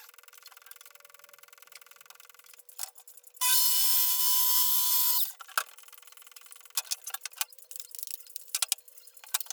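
Power tool running steadily for about two seconds, with a constant motor whine, amid light clicks and knocks of woodworking.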